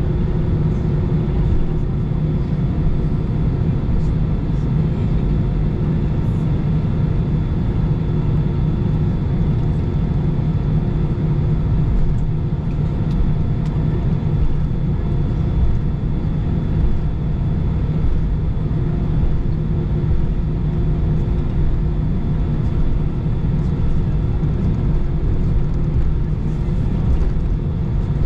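Cabin noise of an Airbus A320 taxiing: a steady low rumble from the engines at taxi power, with faint steady whining tones above it, heard from inside the cabin.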